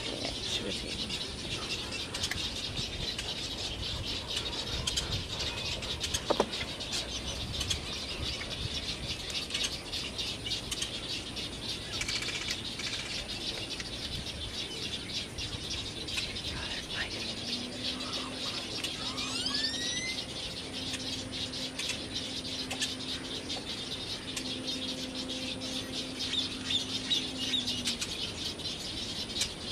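Busy chorus of bird chirps and calls from a waterbird nesting colony, with a few rising calls just past the middle. A low steady hum sounds through much of the second half.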